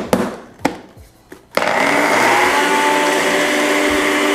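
A few clicks and knocks, then about one and a half seconds in a single-serve cup blender starts and runs steadily at speed, blending chopped fresh ginger in a little water.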